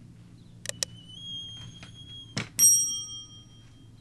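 Subscribe-reminder sound effects: a double mouse click under a second in, a short high tone, then another click and a small bell ding about two and a half seconds in, its ring fading over about a second.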